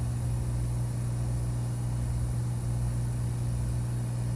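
Hot air rework station's blower running steadily: a constant low hum with an airy hiss of air blowing from the nozzle.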